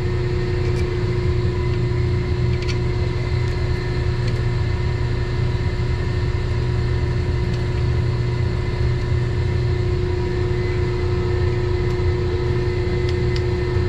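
Steady low drone of running equipment with a constant hum tone, unchanging throughout. A few faint light clicks sound over it.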